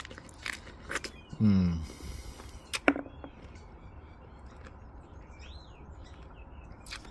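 Wet, crunchy chewing of a bitten pomegranate, with a few sharp clicks over the first three seconds. Birds chirp faintly in the background, with short curved calls through the rest.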